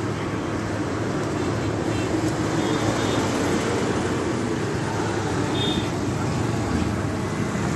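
Steady roadside background noise: a low traffic rumble with faint voices, and two brief faint high tones partway through.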